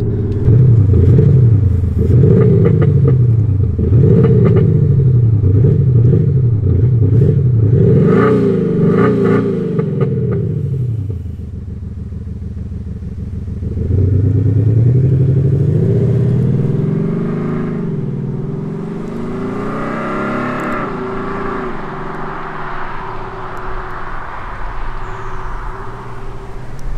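Mercedes-Benz S400d diesel driven hard, its engine note overlaid by a retrofitted active sound generator (exhaust actuator plus in-cabin RSE) playing a scratchy V8-style sound file in Sport mode. The pitch rises and falls over and over during the first part, drops back, then climbs again about halfway through, with road and tyre noise growing near the end.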